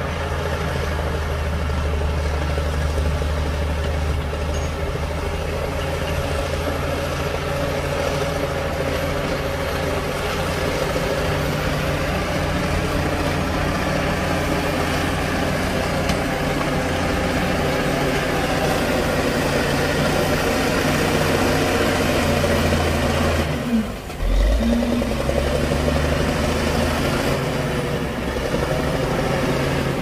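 Heavy diesel engines of earthmoving machinery, a bulldozer and dump trucks, running steadily. About three-quarters of the way through the sound dips briefly and comes back with a changed low pitch.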